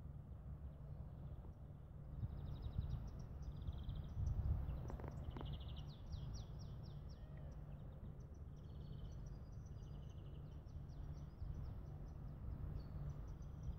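Small songbirds singing in quick trills and chirps, starting about two seconds in and going on throughout, over a low rumble of wind buffeting the microphone.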